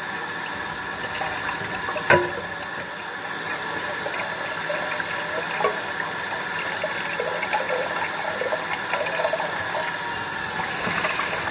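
Hot water running steadily from a kitchen tap, with a single sharp knock about two seconds in.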